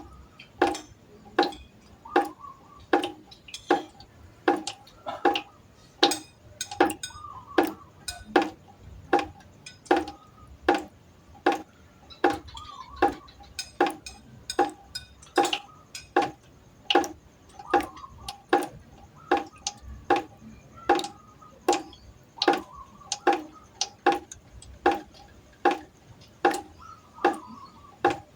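Water droplets falling one by one onto a pot, each making a short ringing plink, at a steady rate of a little more than one a second.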